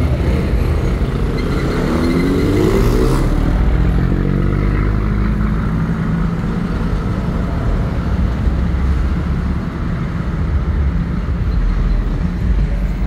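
A motor vehicle's engine running close by, with a rising pitch about two seconds in as it revs.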